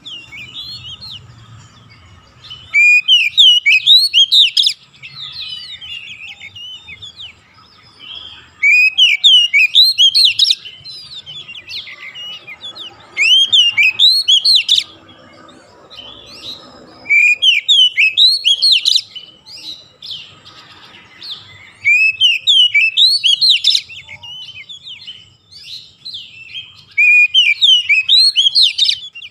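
Oriental magpie-robin singing in loud bursts of about two seconds, six of them, roughly every five seconds: fast runs of whistled notes sliding up and down, with softer twittering in between.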